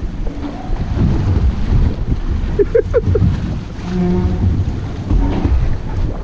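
Wind buffeting the microphone on an open boat at sea, a dense low rumble mixed with water washing against the hull. A few short rising squeaks come about halfway through.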